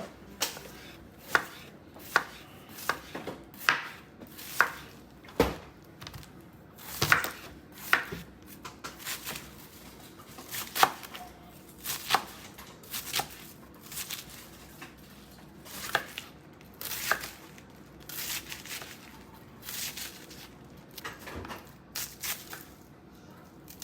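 Knife chopping cabbage on a cutting board: an uneven series of sharp chops, roughly one a second.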